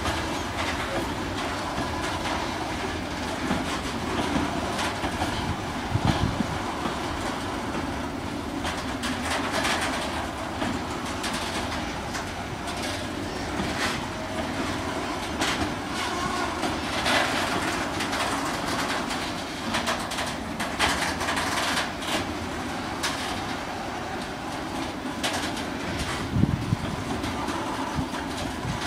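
Freight train of bogie flat wagons loaded with concrete sleepers rolling past, wheels clattering over rail joints with repeated knocks, some louder around a quarter and nearly the whole way through.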